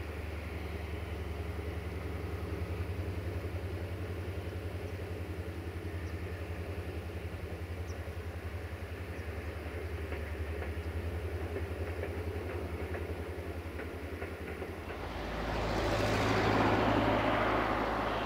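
Diesel locomotive engine running with a low, steadily pulsing drone as a passenger train moves away along the line. About fifteen seconds in, a loud rushing noise swells up and then eases off.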